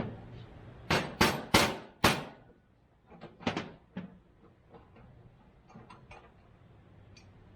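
Hammer blows on a metal part: four sharp strikes in quick succession about a second in, then a few lighter taps and faint clicks.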